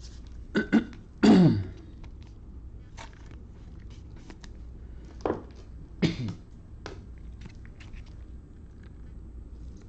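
A man clearing his throat and coughing a few times: two short bursts, then a longer, louder one a second in, and two more about five and six seconds in. Faint light clicks between them.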